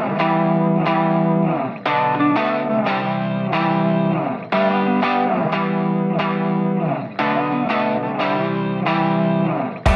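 Background music: electric guitar with effects playing a phrase that repeats about every two and a half seconds.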